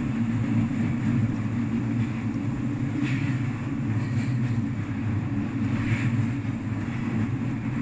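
Electric train running, heard from inside the front car: a steady low rumble of wheels on rails and the running gear, with short higher-pitched noises about three and six seconds in.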